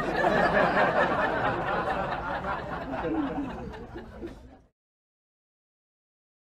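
People laughing and chuckling, then fading and cutting off suddenly a little over four and a half seconds in, followed by dead silence.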